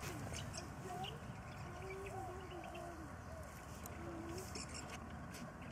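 Birds calling in the background, a string of short calls that bend up and down in pitch, over the faint crackle of fiberglass matting being pulled apart by hand.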